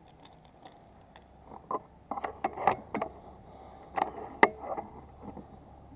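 NHX Reborn PCP air rifle's action being worked between shots: a run of clicks and clacks starting about two seconds in, the sharpest one about four and a half seconds in.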